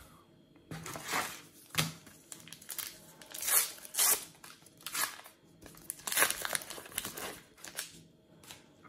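Wrapper of a Panini Adrenalyn XL card pack crinkling and tearing as it is ripped open by hand, in a series of short rips, then rustling as the cards are pulled out.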